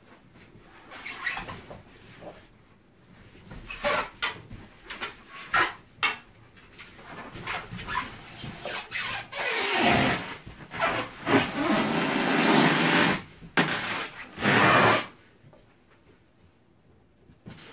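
Large latex balloon squeezed and rubbed under someone sitting and pressing on it, a sit-pop attempt: irregular bursts of rubbing and squeaking, then a long louder stretch in the second half that stops suddenly.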